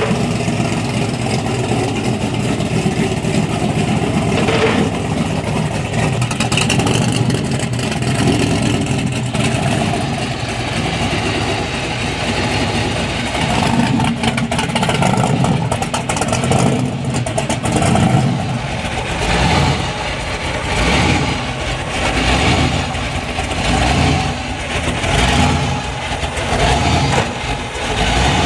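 Supercharged 496 big-block Chevy V8 with an 8-71 blower, running through a short 3.5-inch AERO exhaust while the van is driven. It runs steadily at first; in the second half it rises and falls in repeated revs, about one every second and a half.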